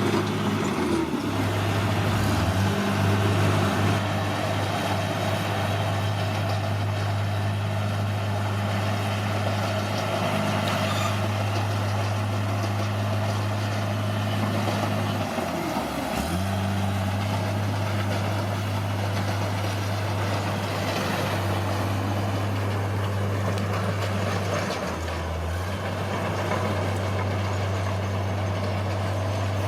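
Bulldozer's diesel engine running steadily with a low drone, its pitch dropping briefly three times before recovering.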